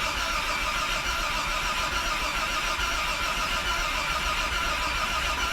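Starter motor cranking the freshly rebuilt 2.8-litre Vauxhall CIH straight-six in an even, steady rhythm without the engine firing, stopping near the end. The engine has good oil pressure but, by the owner's doubt, possibly no spark.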